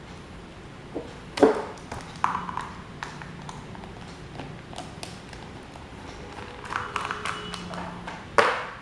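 Scattered knocks and clinks of hard parts being handled and set down, two of them much louder, about a second and a half in and near the end, with a faint brief ring among a cluster of light taps about seven seconds in.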